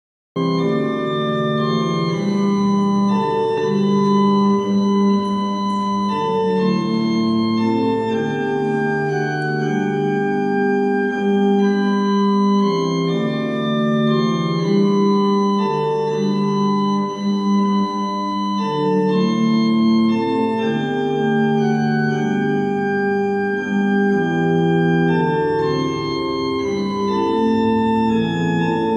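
Organ playing slow, sustained chords that move from one to the next. It starts suddenly just after the beginning.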